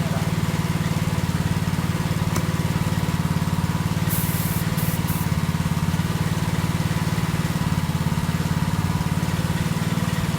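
Small engine idling steadily, with three short high hisses about four to five seconds in.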